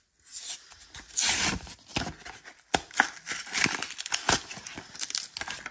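Cardboard-and-plastic blister packaging torn open by hand: ripping cardboard and crinkling plastic, with a few sharp snaps along the way.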